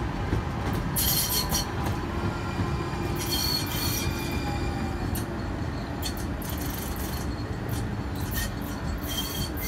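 METRORail light-rail train passing with a steady low rumble of wheels on rail. High-pitched wheel squeal comes in short bursts: about a second in, again around three seconds, and near the end, with scattered clicks from the wheels.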